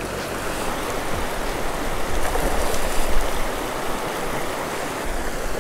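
Shallow mountain river rushing over rocks in a riffle, a steady rush of water.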